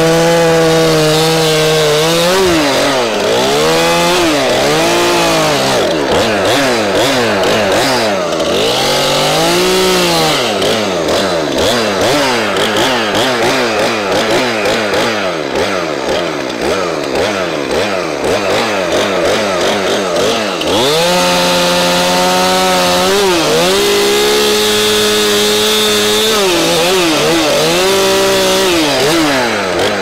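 Stihl MS 271 FarmBoss two-stroke chainsaw running, held at high revs while cutting through a log for the first couple of seconds. Its pitch then rises and falls over and over for much of the time, before it is held steady at high revs again for several seconds near the end, with a few brief dips.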